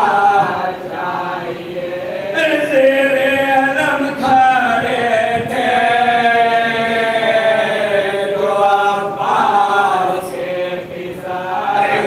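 A small group of men reciting an Urdu marsiya, a Muharram mourning elegy, unaccompanied in a slow melodic chant. The phrases have long held notes that glide between pitches.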